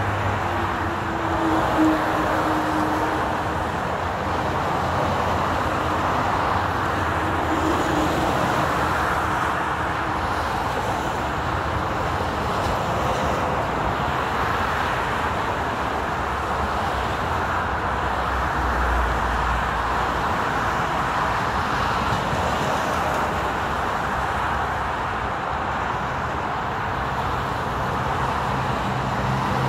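Interstate highway traffic: a steady rush of tyre and road noise from many passing vehicles, with the low engine hum of individual vehicles rising and fading now and then.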